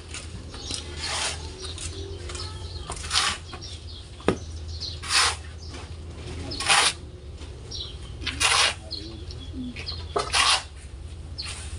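A steel shovel scraping through a pile of sand as it is mixed by hand: a short rasping scrape every one and a half to two seconds, about six strokes in all.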